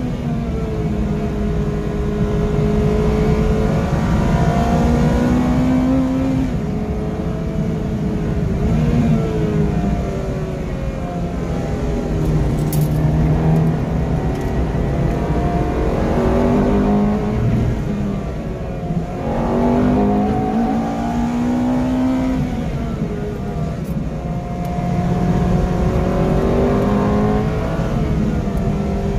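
Ferrari 430 Challenge's V8 engine heard from the cabin at full effort on a lap, its pitch repeatedly climbing through each gear and dropping at the shifts, then falling and swooping back up as it brakes and downshifts for corners.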